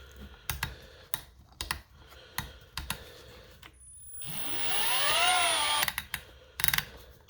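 Milwaukee 12-volt Fuel hammer drill being handled and set: a series of sharp clicks from its settings collar, then about four seconds in a short trigger pull as the motor whirs up and winds back down within about two seconds.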